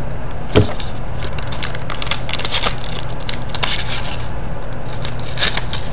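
Foil wrapper of a Pinnacle hockey card pack crinkling and tearing as it is opened by hand, a run of sharp crackles through the middle seconds. A steady low hum runs underneath, with a single click about half a second in.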